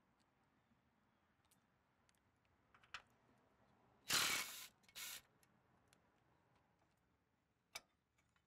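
Cordless impact driver with a 13 mm socket run in two short bursts, about four and five seconds in, backing out a bolt on a corn head's stalk roll shield. Faint clicks of metal parts come before and after.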